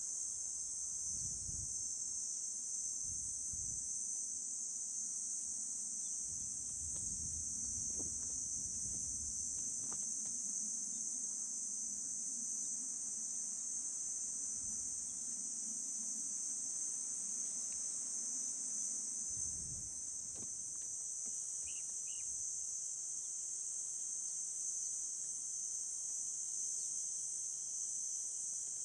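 Steady, high-pitched chorus of insects trilling without a break, with faint low rumbling now and then in the first two-thirds.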